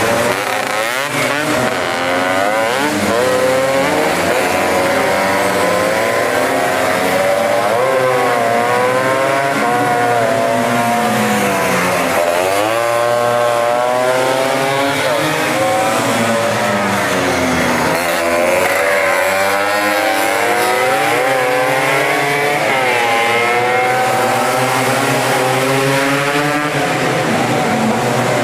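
Several tuned two-stroke racing scooters running hard together, their engine notes rising and falling and crossing one another as they rev up and shift.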